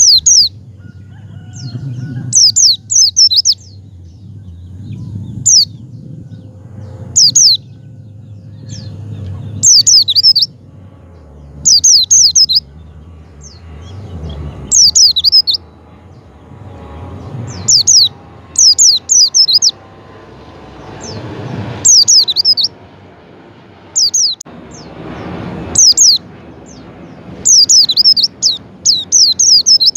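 White-eye (pleci) singing in short bursts of high, rapidly falling chirps, one burst every second or two, over a low background rumble.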